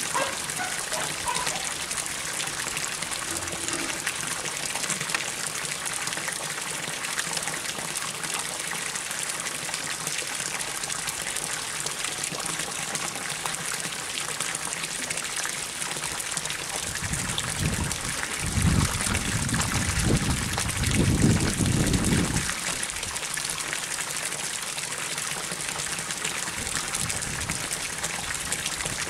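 Water pouring steadily from an inlet pipe into a fish pond, an even splashing hiss. About two-thirds of the way through, a low rumble swells for a few seconds and is the loudest sound.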